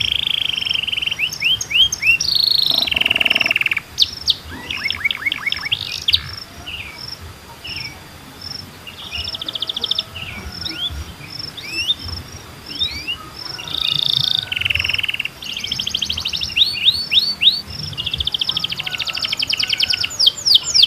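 Several birds singing and chirping together in fast trills and quick sliding notes, with a steady, evenly spaced series of short high notes through the middle.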